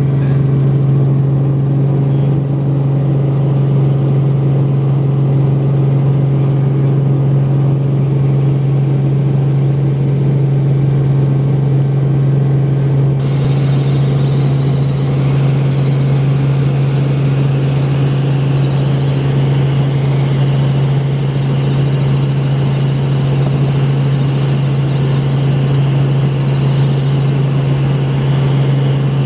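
Helicopter cabin noise in flight: the steady low drone of the rotor and engine. About halfway through, a brighter hiss and a faint high whine join it.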